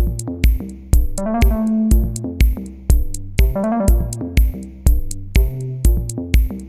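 Background electronic dance music: a steady kick drum about two beats a second under synth chords and sharp percussion hits.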